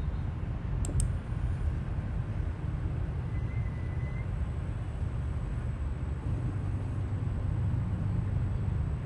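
Steady low rumble of a vehicle moving along the road. There are two sharp clicks about a second in, and a brief faint high tone a little later.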